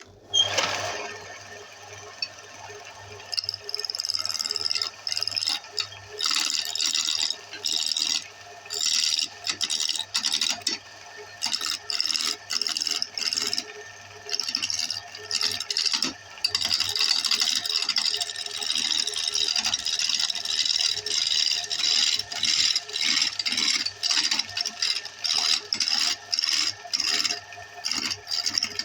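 Wood lathe running with a steady motor hum, while a turning tool scrapes against the spinning wood in short, repeated cuts that start and stop every second or so.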